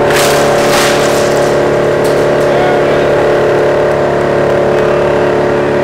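Industrial shredder running with a steady, even machine hum from its rotating toothed drum, with a couple of brief rattling crashes in the first second.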